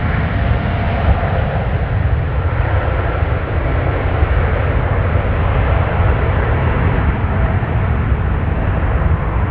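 Jet airliner engines running in a steady, loud, deep rumble, heard from the ground.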